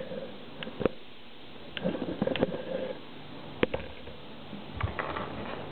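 Handling of Lego bricks and minifigures: a handful of sharp, scattered plastic clicks and taps, with a faint murmur in the middle.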